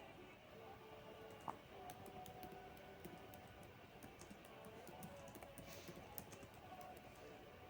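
Near silence: faint room tone with a faint thread of background music and a scattering of soft clicks, one a little louder about a second and a half in.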